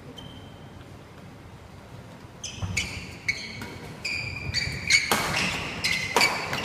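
Badminton doubles rally: rackets hitting the shuttlecock and shoes squeaking on the wooden court floor, in irregular sharp hits and short squeals that start about two and a half seconds in. From about five seconds a louder wash of background noise joins them.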